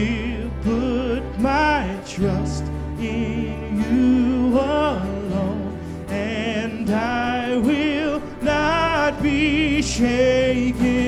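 Live contemporary worship band playing: a man's voice singing held notes with vibrato over acoustic guitar, drum kit and bass guitar.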